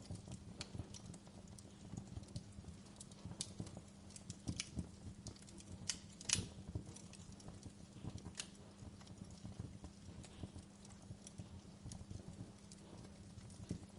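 Wood fire crackling: scattered sharp snaps and pops at irregular intervals, the loudest about six seconds in, over a low steady hum.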